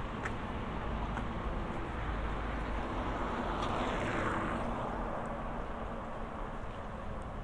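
A car passing along the street, its tyre and engine noise swelling to a peak about four seconds in and then fading, over a steady low rumble of city traffic.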